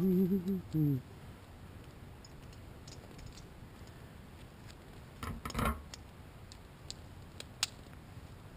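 A man humming a tune, which stops about a second in. Then a short cluster of small clicks and clinks about five seconds in, and a single sharp click near the end.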